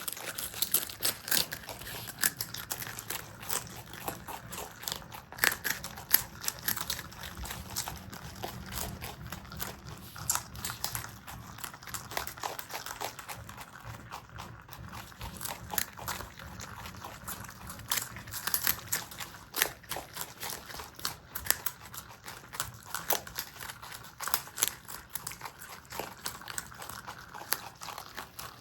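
Marmots chewing food at close range: a quick, irregular run of crisp crunches and clicks.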